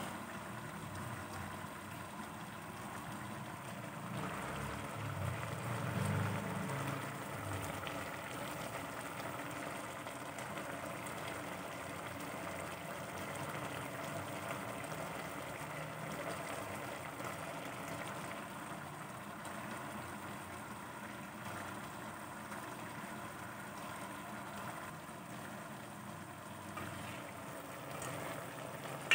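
Green papaya and chicken simmering in coconut milk in an aluminium pot on a gas stove, a steady bubbling hiss, with a low rumble swelling for a few seconds near the start.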